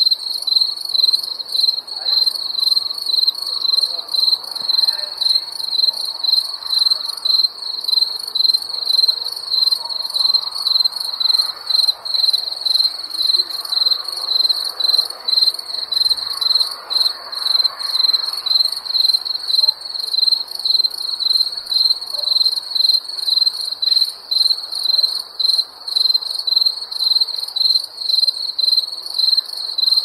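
Crickets chirping at night: high, even pulses repeating steadily at a few chirps a second.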